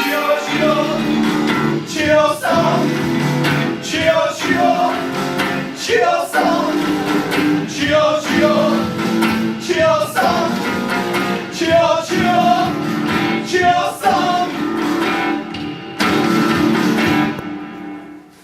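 A song played live on strummed acoustic guitar with a singing voice, ending a little before the close.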